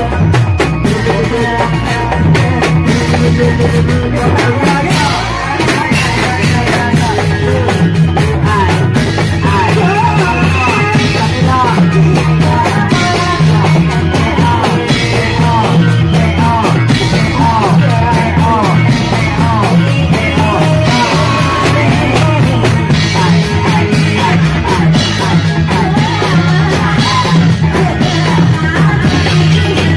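Loud live reog music from a drum ensemble, fast steady drumming with a wavering melody line over it, amplified through loudspeakers.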